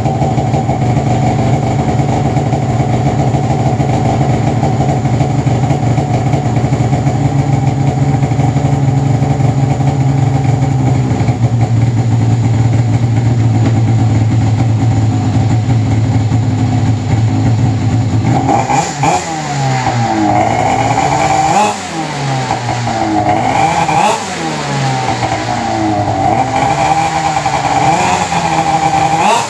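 2002 Arctic Cat ZR 800 snowmobile's two-stroke twin engine, freshly rebuilt, running steadily at idle. About two-thirds in it is revved and let fall back about five times, a few seconds apart: light revving as part of its break-in heat cycle on the stand.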